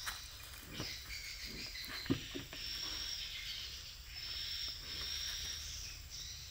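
Insects, crickets or cicadas, chirping in a steady high-pitched chorus, with a few short soft knocks, the sharpest about two seconds in.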